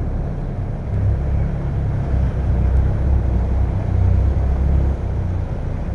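Motorboat engine running underway, a steady low rumble.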